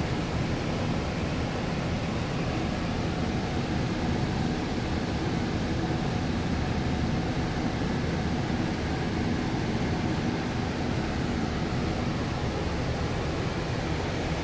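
Steady, unchanging whooshing machine noise.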